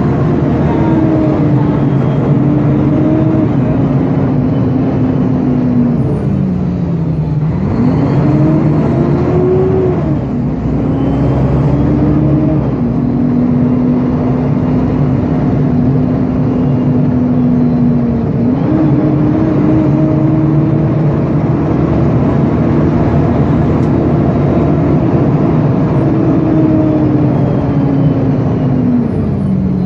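Mercedes-Benz O-500UA articulated bus's diesel engine running under way. Its pitch climbs and drops back several times, as under acceleration and gear changes, with long steady stretches between.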